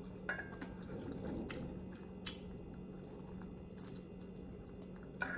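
Close-up eating sounds: a buffalo chicken wing being gnawed to the bone, with scattered crunchy bites, chewing and lip smacks. A faint steady low hum runs underneath.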